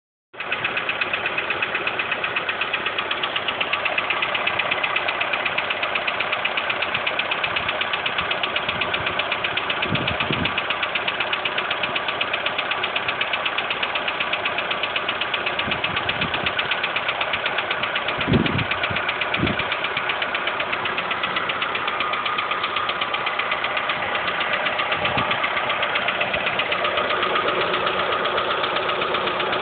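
An engine running steadily with a fast, even ticking knock through it: the abnormal engine noise being recorded as a fault. A few dull low thumps come through about ten seconds in and again around eighteen to nineteen seconds.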